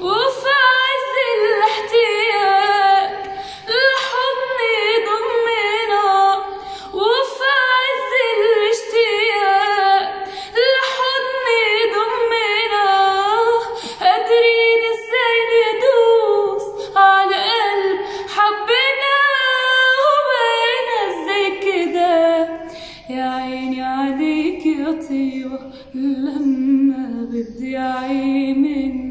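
A woman singing solo and unaccompanied, in long melismatic phrases of an Egyptian Arabic song with wide vibrato. About two-thirds of the way through, she drops to a lower, quieter register.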